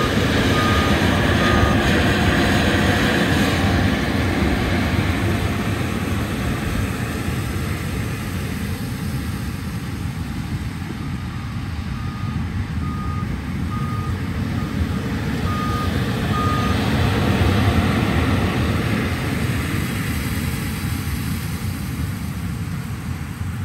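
WeedControl LB7000E electric leaf blower on an AllTrec 8015F running at full blast: a loud, steady rush of air with no engine note, swelling as it blows a pile of leaves. A short electronic beep repeats about once a second near the start and again in the middle.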